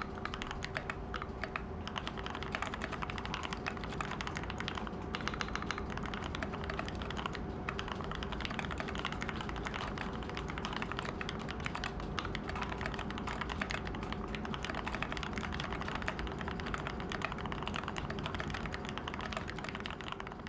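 Continuous fast typing on a lubed NK65 aluminium mechanical keyboard with Gateron Ink Black linear switches and XDA dye-sub keycaps: a dense, unbroken stream of keystroke clacks. A faint steady hum runs underneath.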